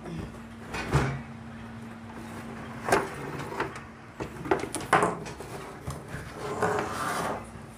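Cardboard box and packing being handled: several sharp knocks of cardboard flaps and inserts, then a longer scraping rustle near the end.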